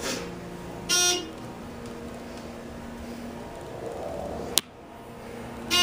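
Hydraulic passenger elevator's electronic chime giving two short beeps, one about a second in and another at the end, over a low steady hum that fades out partway through. A single sharp click comes shortly before the second beep.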